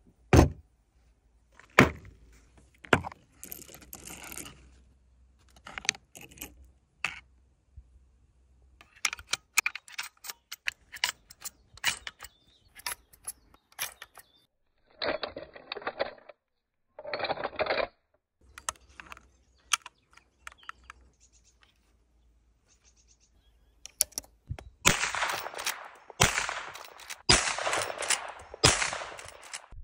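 Marlin Model 1894S lever-action rifle being handled and loaded: sharp metallic clacks of the action, then a run of small clicks as cartridges are pushed one by one through the loading gate into the tube magazine. Near the end come several shots in quick succession, with the lever cycled between them.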